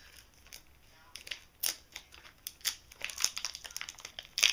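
Plastic packaging crinkling and crackling in the hands in short, irregular bursts, loudest just before the end.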